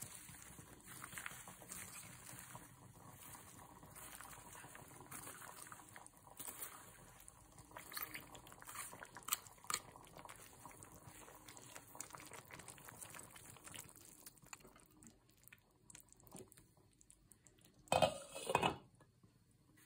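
Shredded lettuce sliding off a plastic colander into a pot of simmering soup: soft rustling and bubbling, with a few light knocks from a plastic spatula. Near the end a glass lid is set on the steel pot with a brief clatter, the loudest sound here.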